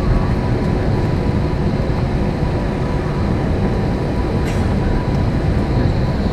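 Airliner cabin noise inside an Airbus A321 rolling along the runway: a loud, steady rumble of the wheels and engines, with a faint steady whine above it.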